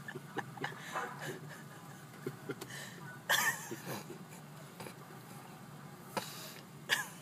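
A few short bursts of stifled, breathy laughter inside a car, over a steady low hum. The loudest burst comes about three seconds in and another just before the end.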